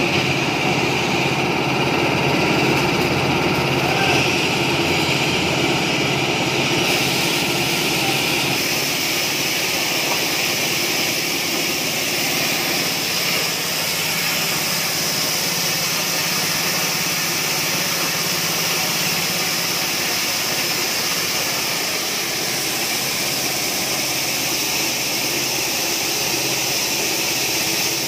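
Small petrol engine running steadily, driving a mini coffee huller that strips the parchment husk from dried coffee beans. A brighter hiss joins about seven seconds in.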